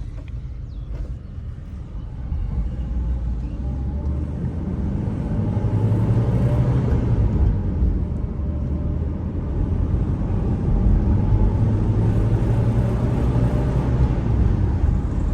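Mercedes-Benz W124's M111 four-cylinder petrol engine running with a low, steady rumble. It grows louder about two seconds in and again around five seconds in.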